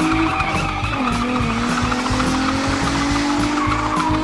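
A revving vehicle sound that rises in pitch, drops about a second in and then climbs slowly again, over background music with a steady beat.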